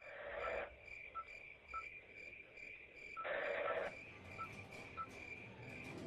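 Insects, cricket-like, chirping in a steady rhythm of about two short chirps a second, with two brief bursts of rushing noise, one at the start and one about three seconds in.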